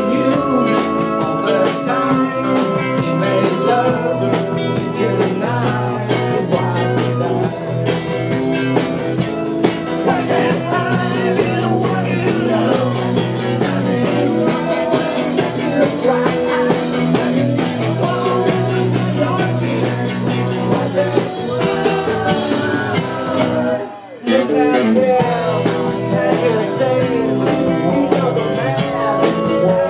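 Live 1960s-style freakbeat/garage-rock band playing: electric guitars, drum kit with cymbals, and a sung lead vocal. About three-quarters of the way through, the band cuts out for an instant and comes straight back in.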